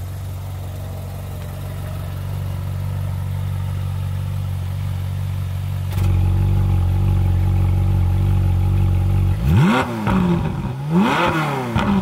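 Ferrari 458 Spider's 4.5-litre naturally aspirated V8 idling with its exhaust valves held open. About halfway in it becomes louder, heard at the tailpipes, and near the end it is revved twice, the pitch rising and falling each time.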